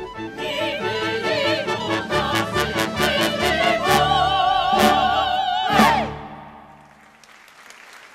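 Theatre orchestra playing a fast operetta dance number that ends on a loud final accent about six seconds in, then stops. Faint applause follows.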